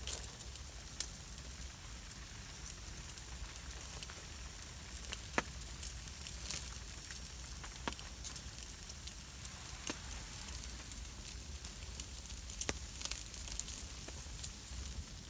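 Bacon sizzling on a grill over a wood campfire, the fire crackling, with a few sharp pops scattered through.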